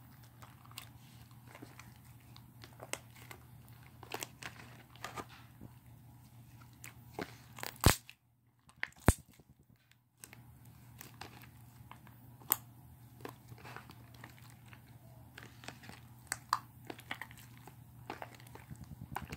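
Slime being squished and mixed by hand, making irregular small clicks and pops over a low steady hum. Two sharper clicks stand out about eight and nine seconds in, with a brief drop to near silence between and after them.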